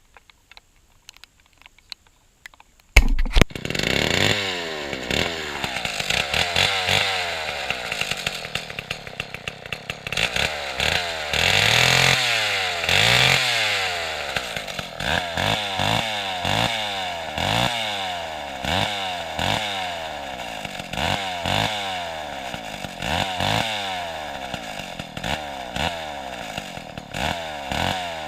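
A Lombard AL42 two-stroke chainsaw fires up about three seconds in and is revved again and again, its pitch rising and falling with each blip of the throttle, with one longer high rev partway through.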